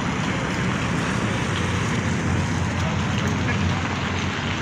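Steady rushing noise with a low rumble, typical of wind buffeting the microphone.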